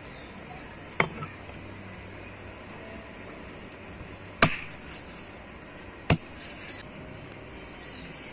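Three sharp chops, a knife striking a cutting board as a chicken is cut into pieces, spaced unevenly about a second in, past the middle and near the end.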